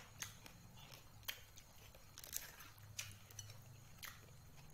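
Quiet eating: chewing, with about five sharp clicks spread a second or so apart as food is handled in a bowl, over a faint low hum.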